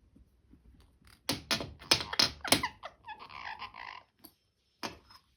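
Indian ringneck parrot making a quick run of about six sharp clicks and taps, then a second of raspy, grumbling chatter, with one more click near the end.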